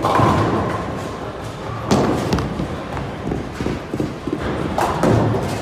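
Red bowling ball released from a child's plastic bowling ramp, thudding onto the wooden lane with a loud thud about two seconds in, among other thuds and the din of a bowling alley.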